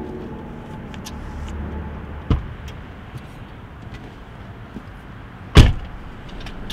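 A car's passenger door shut with a loud slam about five and a half seconds in, after a lighter knock about two seconds in as a passenger climbs in, over the low steady rumble of the idling car.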